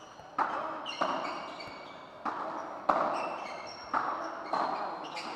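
Padel ball being struck by solid padel rackets and bouncing off the court floor and walls during a rally: about seven sharp pops, roughly one a second, each echoing in the hall.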